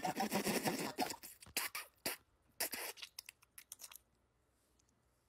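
A woman making wet, sputtering mouth noises and spitting: a dense spluttering burst, then a string of sharp wet smacks that stops about four seconds in.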